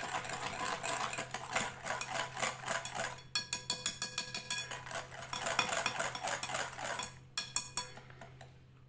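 A utensil stirring a wet mixture of egg yolks, oil, powdered sugar and grated lemon zest in a bowl, with quick repeated clicks and scrapes against the bowl. It dies away near the end.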